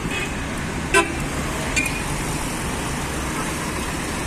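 Steady road traffic noise heard while riding, with a single short horn toot about a second in and a fainter short beep just under a second later.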